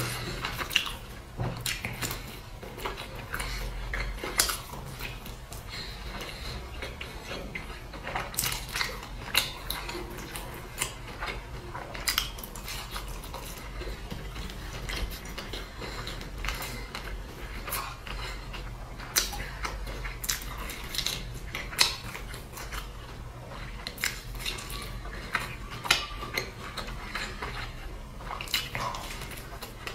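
Close-up eating sounds: biting and chewing of pan-fried stuffed buns, broken by many short clinks and taps of chopsticks against a glass sauce bowl.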